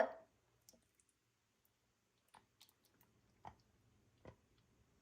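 A few faint, scattered clicks and taps from kitchenware being handled, the loudest right at the start and the others spaced irregularly over several seconds.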